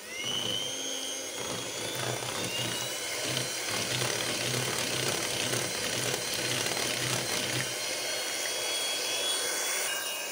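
Electric hand mixer switched on, its motor whine rising briefly as it spins up and then running steadily, the beaters churning crème fraîche and date syrup.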